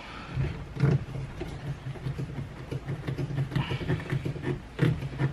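Workshop handling sounds of wooden clamps and a glued wood workpiece: two sharp wooden knocks, about a second in and near the end, with smaller clicks and a short rasp between, over a low steady hum.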